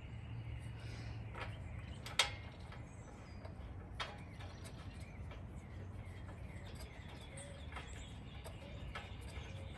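A few sharp, separate clicks and taps of hand tools on a mower engine while a new spark plug is fitted, the loudest about two seconds in, over a low steady rumble.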